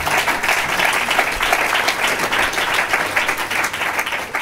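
Audience applauding: many hands clapping in a dense, steady roll.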